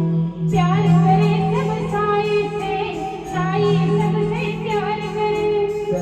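Live band music with a woman singing a Hindi song over a steady held accompaniment; her voice comes in about half a second in with wavering, sliding notes.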